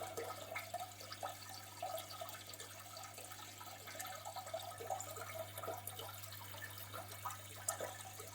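Faint trickling and bubbling of aquarium water, with many small irregular drips and splashes over a steady low hum.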